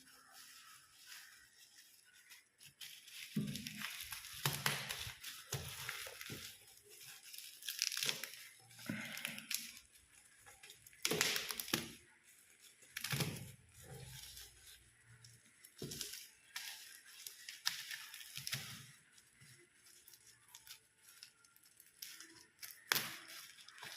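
Packaging of a hair trimmer being opened and handled: irregular tearing and crinkling of wrapping with scattered small clicks and knocks.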